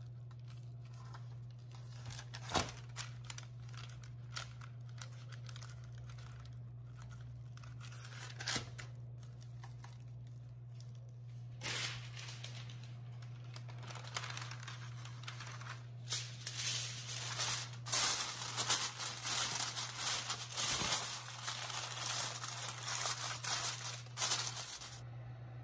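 Aluminium foil crinkling and rustling as it is handled and spread over a baking tray, dense and loudest in the second half, stopping suddenly just before the end. Before it, scattered taps and clicks of squash halves being handled on a parchment-lined tray, over a steady low hum.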